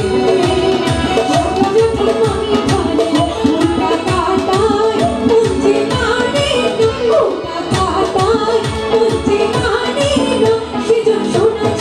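A woman singing a Bengali folk song live into a microphone, backed by a band with keyboard and guitar, and percussion keeping a steady quick beat.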